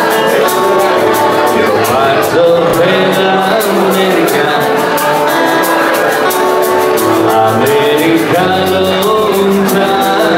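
Live acoustic guitar strummed in a steady rhythm while male voices sing into microphones.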